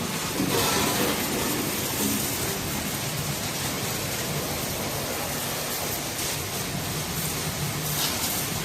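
Water spraying with a steady rushing hiss.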